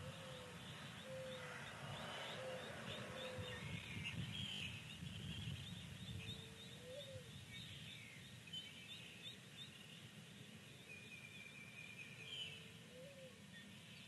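Newly hatched chicks and a duckling peeping: a steady stream of short, quick high chirps, with a few longer notes and some lower drawn-out calls mixed in, over a faint low hum.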